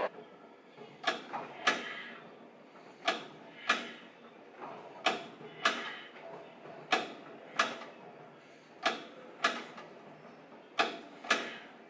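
Plate-loaded weight machine clacking during reps. Each rep gives a pair of sharp clacks about half a second apart, and the pairs come steadily about every two seconds.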